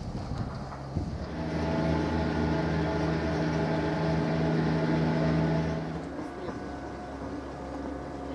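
Benalmádena cable car gondolas running along their cables: a steady mechanical hum and whirr with several fixed tones, starting about a second in and easing off after about six seconds.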